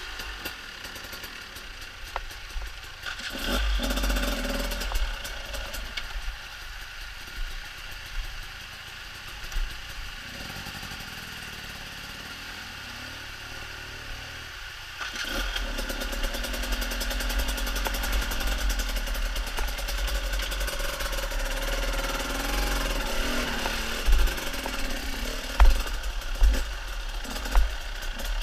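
Enduro motorcycle engines running at low speed with changing throttle while riding up a rocky creek bed, getting louder about halfway through. Several sharp knocks come near the end.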